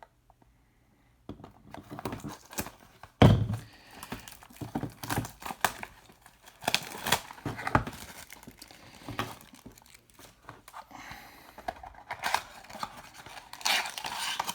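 Trading card pack being opened by hand: wrapper torn and crinkled, and the cards handled, with small clicks and rustles. A single loud knock comes about three seconds in.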